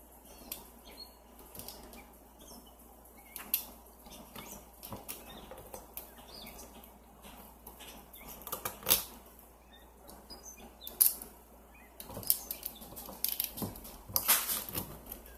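Frozen ice handled close to the microphone: scattered clicks, crackles and scrapes, with a few sharper cracks and a busier run of crackling near the end.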